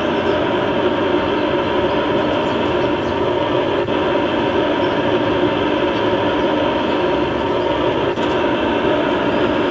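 1/16 scale RC M60 tank's electronic sound unit playing a steady tank engine running sound through its small speaker, without pause, with a faint click about 4 seconds in and another about 8 seconds in.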